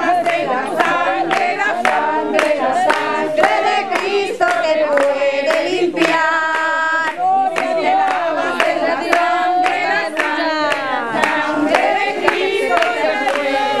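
A congregation singing a worship chorus together, accompanied by steady rhythmic hand clapping, with one long held note about halfway through.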